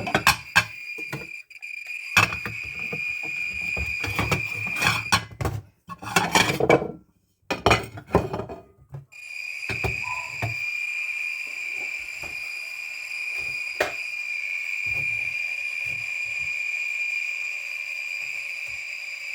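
A dosimeter's beeper sounds one steady high-pitched tone, broken by knocks and handling clicks. The tone drops out for a few seconds in the middle, where the handling noise is loudest, then comes back and holds steady.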